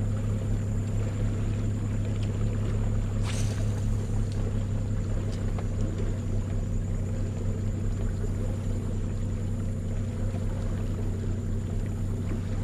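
Boat motor running with a steady low hum, with one sharp click about three seconds in.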